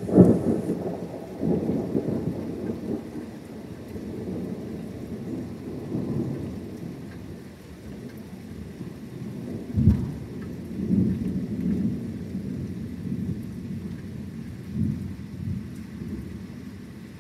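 A sudden clap of thunder right at the start, followed by long rolling thunder that rumbles on with further loud peaks, the strongest about ten seconds in; rain falling underneath.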